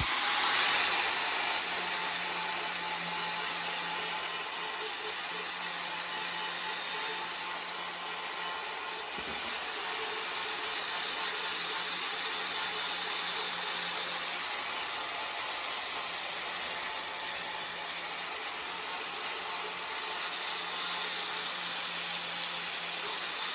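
A power sanding tool running steadily against the metal turbo downpipe, preparing the surface for welding: a continuous high, hissing grind over a faint motor hum.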